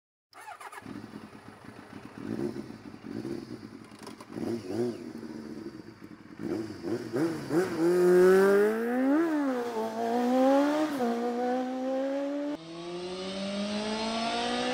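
Motorcycle engine revving, its pitch climbing steadily as it accelerates, with two short throttle blips partway through; an abrupt cut near the end starts a second rising run.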